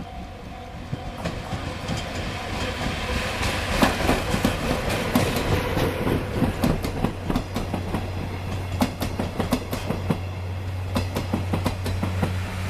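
Train headed by the Chichibu Railway Deki 108 electric locomotive running on the line, with wheels clattering over the rail joints in quick irregular clicks over a low steady hum. The clatter picks up about a second in and is loudest around four seconds in.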